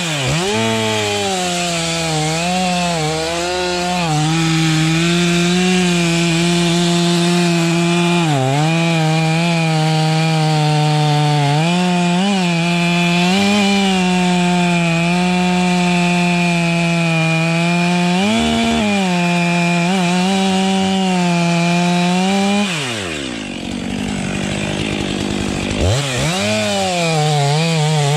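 Chainsaw cutting through wood at high revs, its engine note dipping briefly several times as the chain loads up in the cut. About 23 seconds in the engine falls off to a lower speed, then revs back up near the end.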